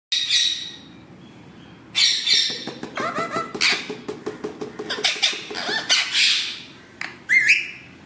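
Rose-ringed parakeet squawking in loud, high calls at the start, about two seconds in and again near the end, with chattering calls and quick clicks in between.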